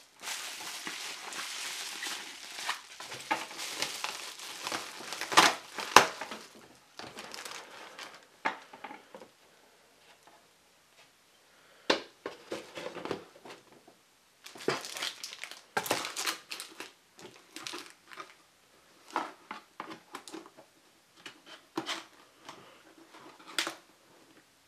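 Paper packing crumpling and rustling under the hands for the first several seconds, with a few sharp clicks. Then shorter bursts of cardboard rustling and light taps as box flaps are folded and pressed shut.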